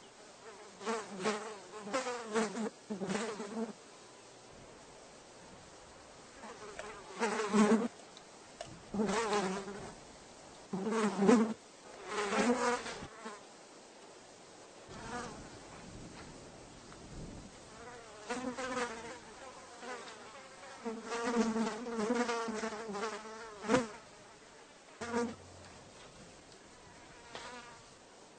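Housefly buzzing in on-and-off spells, its hum wavering in pitch as it comes and goes, with short quieter gaps between the buzzes.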